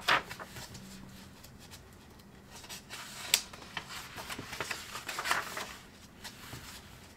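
Sketchbook pages being turned by hand: soft paper rustles and flicks, with a sharp tap about three seconds in.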